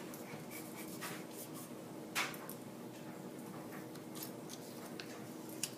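Faint rustling and rubbing of vinyl decal pieces being handled and pressed onto the mixer body, with a few short scratchy strokes, the loudest about two seconds in, over a steady low hum.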